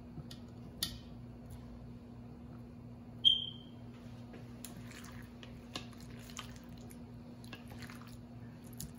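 Small whole potatoes being set into a metal cooking pot, one knocking the pot with a short bright ring about three seconds in. Soft wet squelches of a gloved hand working chile-marinated meat follow, over a steady low hum.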